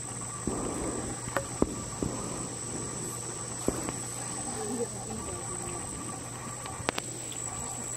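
Steady high-pitched insect trill, cricket-like, over a low steady hum, with a few faint ticks scattered through.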